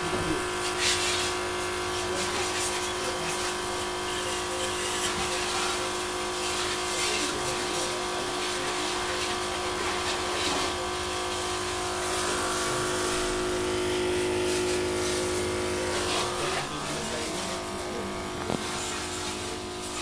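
Small electric diaphragm water pump running steadily with a constant hum, with water spraying from the hose onto a scooter. The steady hum breaks up near the end.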